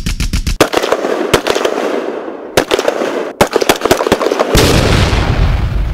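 Rapid, dense gunfire: many sharp cracks in quick clusters over a continuous crackle, with a deeper rumble joining about two-thirds of the way through.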